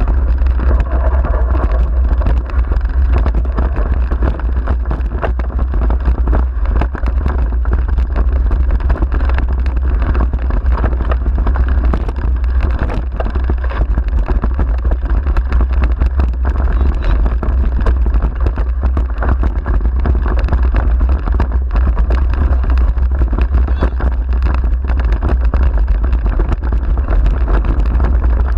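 A dog-pulled wheeled mushing rig running fast over a rough grass and dirt trail, heard from a camera on its handlebars: a constant heavy low rumble of wind and vibration, with many small knocks and rattles as the wheels hit bumps.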